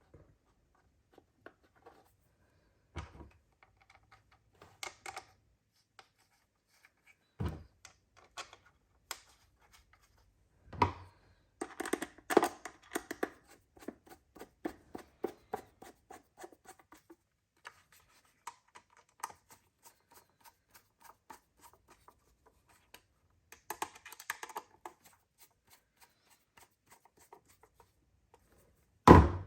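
Scattered small clicks, taps and scratchy ticks as a Fluke 87 multimeter's plastic case is handled and its three Phillips screws are driven in with a screwdriver. There are short runs of quick ticks about twelve seconds in and again near twenty-four seconds, and a sharp knock near the end.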